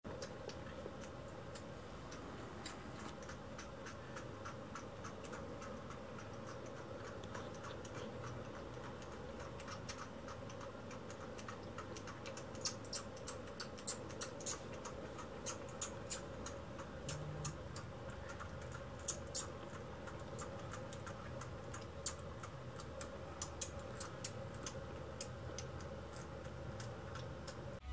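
Kitten suckling milk from a nursing bottle: a faint, quick run of small wet clicks and smacks over a steady low room hum, with louder clicks from about halfway through.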